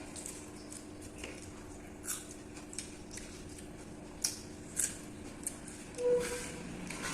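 Close eating sounds from someone eating watered rice (pakhala) with fried brinjal and pickle: scattered wet mouth clicks and smacks, a few seconds apart, with a louder one about six seconds in. A faint steady hum lies underneath.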